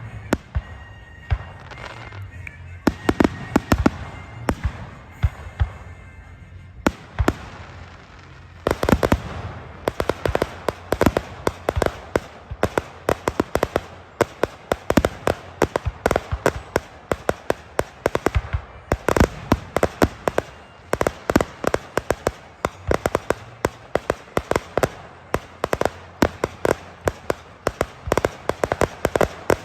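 Fireworks going off in quick strings of sharp bangs and crackles. The bangs are scattered at first, then turn into near-continuous rapid crackling from about nine seconds in.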